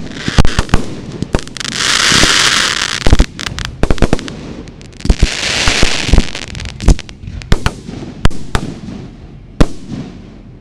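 Ground-fired display fireworks going off at close range: a rapid, uneven string of sharp bangs and cracks, with two spells of loud hissing about two seconds in and again about five seconds in. The bangs thin out and die away near the end.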